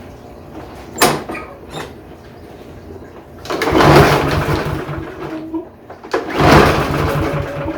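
Briggs & Stratton 550EX mower engine cranked twice by its recoil starter rope, each pull a loud whirring rush of about a second and a half, with the engine turning over but not firing: it has no fuel and no spark plug connected. A sharp click about a second in.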